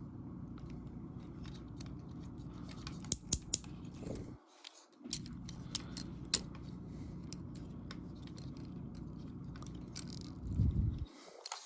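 Scattered small plastic clicks and taps as a Transformers action figure's parts are handled and fitted, over a steady low hum.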